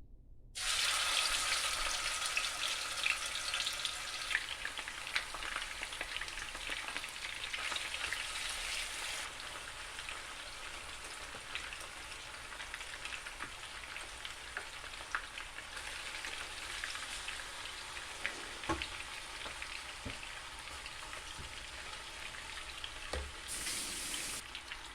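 Seasoned chicken pieces sizzling and crackling as they brown in hot oil in a pot. The sizzle starts suddenly, is loudest at first and then settles to a steadier crackle, with a few light knocks partway through.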